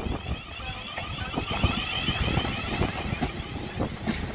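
South Western Railway Siemens Desiro electric train moving slowly past at a platform: a high whine from its traction equipment over a low rumble, with short clicks and knocks from the wheels on the track.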